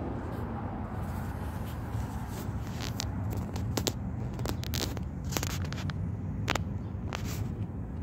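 Outdoor ambience: a steady low rumble with a scatter of short, scratchy clicks and crackles through the middle of the stretch.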